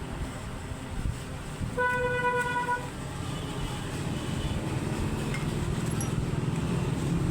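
A vehicle horn sounds once, a steady tone lasting about a second, over a low rumble of engines and traffic that grows louder in the second half.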